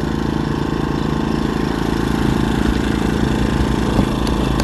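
A small engine running steadily at idle, with an even low pulsing. A single click about four seconds in.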